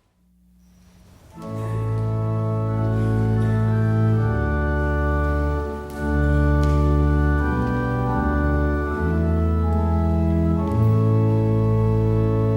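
Church organ playing a hymn introduction: sustained chords over deep held bass notes, coming in about a second and a half in after a moment of near silence.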